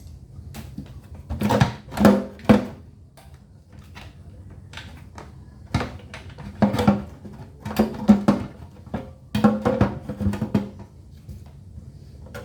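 Irregular knocks, clanks and rattles of hard generator parts being handled, in several clusters with short ringing, as the fuel hose and fuel tank of a gasoline inverter generator are removed.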